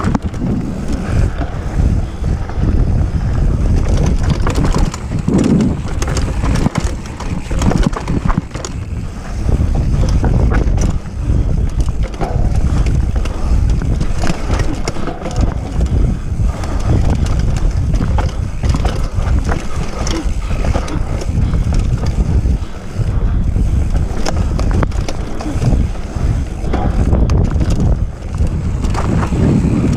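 Mountain bike descending a dirt trail at speed: heavy wind noise on the camera microphone over the tyres on dirt, with frequent short knocks and rattles from the bike over bumps.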